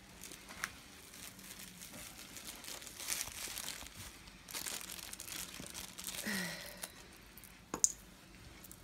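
Packaging crinkling and tearing as a present is unwrapped, with a few sharp clicks, the loudest near the end.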